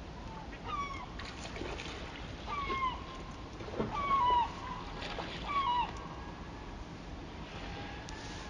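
A bird gives about five short falling calls, a second or two apart, the loudest about four seconds in, over the steady rush of river water.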